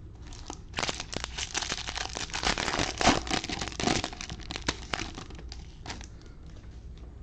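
2021 Bowman baseball card pack wrapper being torn open and crinkled in gloved hands, a dense crackling run from about a second in that thins out after about five seconds.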